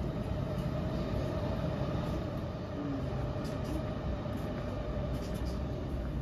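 A JR Chuo Line train running, a steady low rumble with a steady hum above it.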